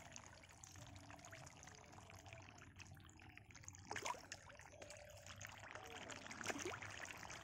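Faint trickling and splashing water, with one sharper sound about four seconds in.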